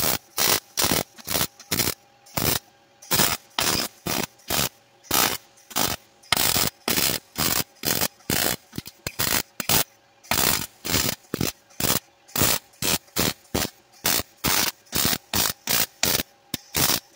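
Wire-feed (MIG) welder butt-welding a thin steel floor-pan patch in short bursts: a crackling arc that starts and stops about twice a second, each burst a fraction of a second long.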